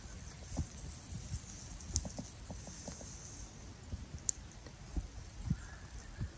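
Quiet outdoor ambience: scattered soft, low knocks over a faint high hiss, with one short high chirp about four seconds in.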